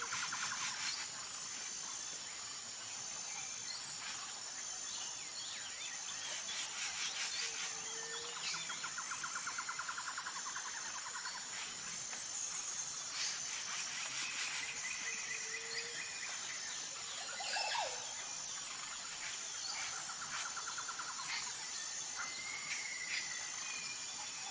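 Insect and bird ambience: a steady high insect hum, rapid pulsing insect trills at intervals, and scattered bird chirps, with a short low call recurring about every eight seconds.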